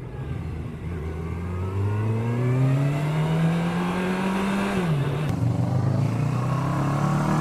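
Kawasaki ER-6n parallel-twin motorcycle engine accelerating, its pitch rising steadily, then dropping sharply about five seconds in at a gear change before climbing again.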